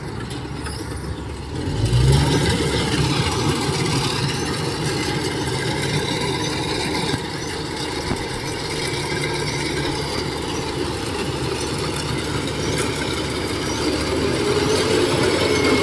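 Rice combine harvester's diesel engine running steadily as it cuts and threshes along the field edge, getting louder about two seconds in.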